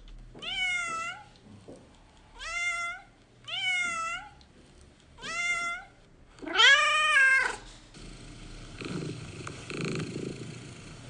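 Domestic cat meowing five times, short rising-and-falling meows, the last one longer and louder. It then settles into a steady purr from about two-thirds of the way in.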